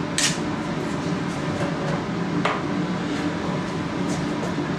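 A salt shaker shaken once over a raw pie crust right at the start, then a single light knock about halfway through, over a steady low hum.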